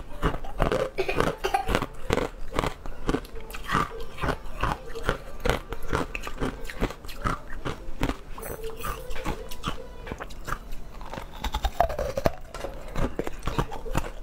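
Close-miked chewing and biting of a sugar-coated jelly candy: a dense run of irregular mouth clicks and squishing strokes.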